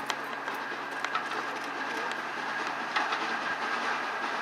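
Steam-hauled train approaching, its locomotive running tender first: a steady rumble with a few sharp clicks of wheels over rail joints, growing slowly louder.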